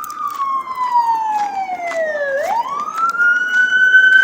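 Emergency vehicle siren wailing: one long tone falls slowly in pitch for about two seconds, then sweeps quickly back up and holds high near the end.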